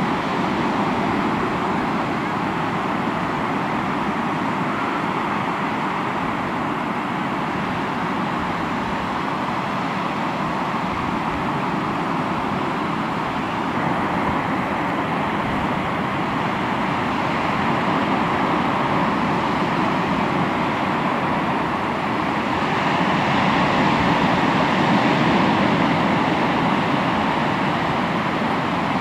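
Sea waves washing onto the shore in a steady rush of surf, swelling louder for a few seconds near the end.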